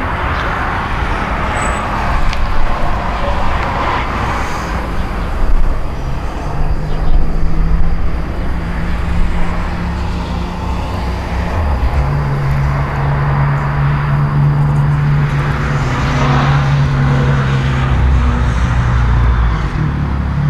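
An engine running steadily, a low hum that steps up slightly about twelve seconds in, over outdoor background noise.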